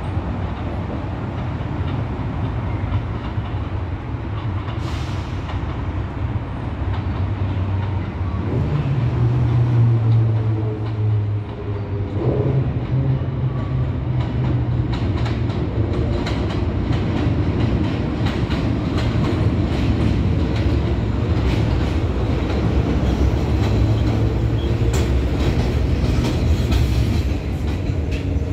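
New York City subway train approaching and running through an elevated station: a steady low rumble, with wheels clicking over rail joints through the second half.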